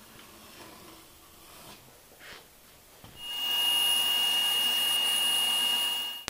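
Bandsaw running and cutting a Formica-faced board, a loud steady sound with one strong high whine, which comes in about halfway through after a few seconds of quiet handling and cuts off abruptly near the end.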